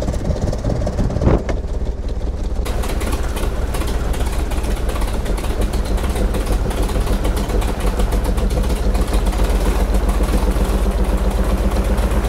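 Twin-engine light airplane's piston engines: one already running, the second catching on its starter about two and a half seconds in and then running steadily with the first. It is the second engine's first start after 37 years of sitting.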